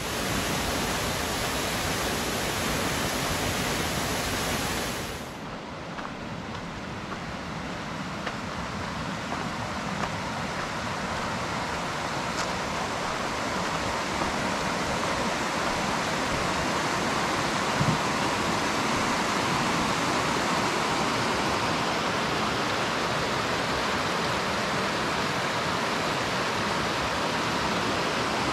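Steady rushing of fast-flowing mountain water. It dips about five seconds in, then builds gradually louder.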